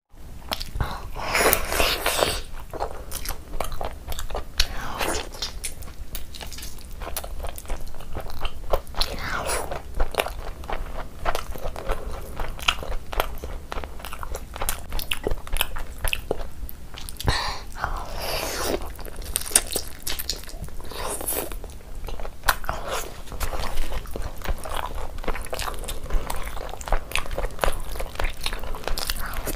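Close-miked eating: a person biting into and chewing curry-coated chicken drumsticks, with many short sharp clicks and crunchy bites among the chewing.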